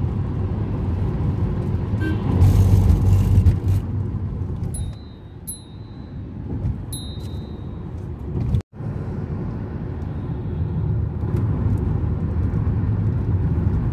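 Road and engine rumble inside a moving car's cabin, swelling louder for a couple of seconds about two seconds in. While the rumble is quieter near the middle, three short high beeps sound, and the sound cuts out for an instant about two-thirds through before the rumble returns.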